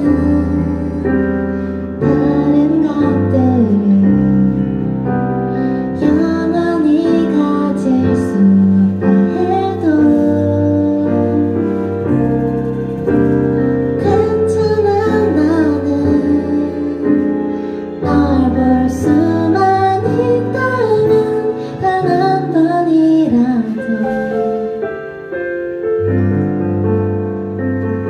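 A woman singing a slow, gentle song live, accompanied by keyboard chords.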